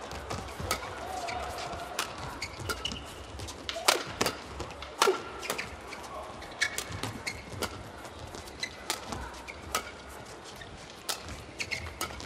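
Badminton rally: rackets strike the shuttlecock in a dozen or so sharp cracks at an irregular pace, sometimes more than one a second. Short squeaks of shoes on the court mat and a low crowd murmur run beneath.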